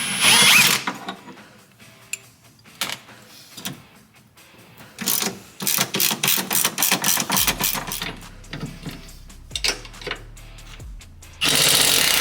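Hand ratchet and tools clicking in quick runs as bolts on the rear sway bar brackets and end link are loosened, over background music. A louder rush of noise comes at the very start and again near the end.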